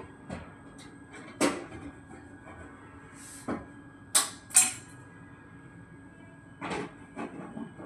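A series of separate sharp knocks and clicks at irregular intervals, the loudest a pair about four seconds in, over a faint steady high whine and hum.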